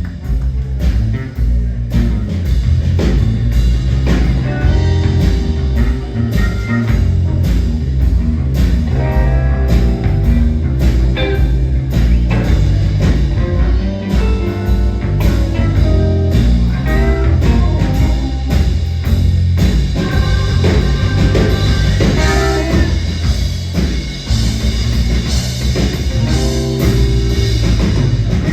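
Rock band playing loudly: electric guitar over a drum kit keeping a steady beat, with heavy low end and no singing.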